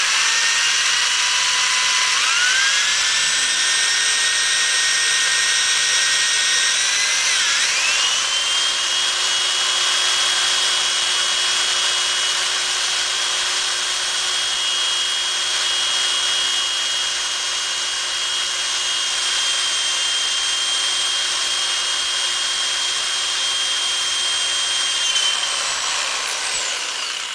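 Cordless electric drill running steadily, spinning a brass .223 case chucked in it while an 11/64-inch bit is pressed into the flash hole to bore it out. The motor whine rises in pitch about two seconds in, dips and resettles around eight seconds, then holds steady until it stops at the end.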